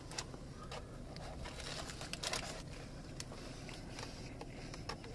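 Eating a Crunchwrap: irregular crinkling and crunching clicks from the wrapper and the crisp filling as it is bitten and chewed, over a steady low car-cabin rumble.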